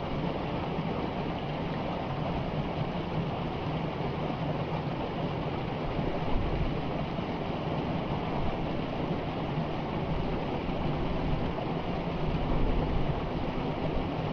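Steady outdoor rushing noise, swelling a little about halfway and again near the end.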